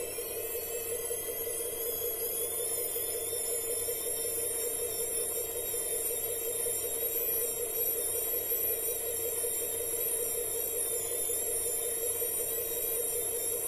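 Steady electric whine of a small motor and its gearing, a constant mid hum with thin wavering high tones, as the RC tow truck's boom and wheel-lift forks are driven slowly.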